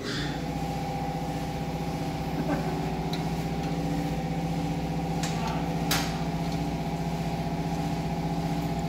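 A machine running steadily in the workshop, a constant-pitched mechanical drone, with a few light metallic clicks from the exhaust pipe being handled.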